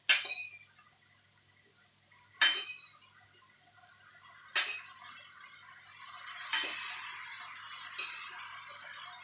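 Five sharp kitchen clinks of glass or metal, each ringing briefly, about two seconds apart. A steady hiss rises from about halfway through and carries on under the later clinks.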